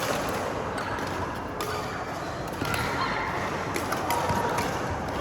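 Badminton rally: sharp racket strikes on the shuttlecock every second or two, with brief shoe squeaks on the court.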